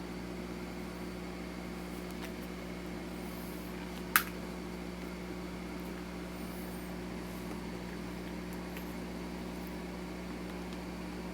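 Steady mechanical hum with several constant low tones, under faint handling scratches, and one sharp click about four seconds in.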